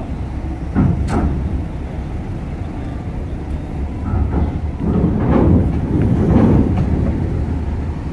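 Cars driving down a ferry's steel loading ramp: engines running over a steady low rumble, with a couple of sharp clanks about a second in and a louder rattling clatter from about five to seven seconds as wheels roll over the ramp plates.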